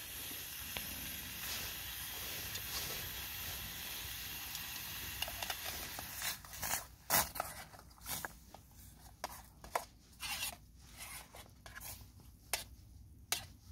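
Trangia spirit stove burning at full flame with its pot hissing steadily, the hiss dropping off about six seconds in. Then a run of clicks, knocks and rustles as the aluminium pan is handled with the pot gripper.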